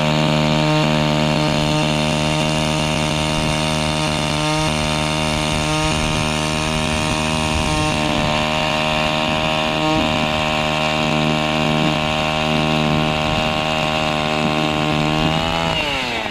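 Gas-powered ice auger running at a steady high speed while drilling through lake ice, its pitch dipping briefly a few times, then falling as the engine is throttled down near the end.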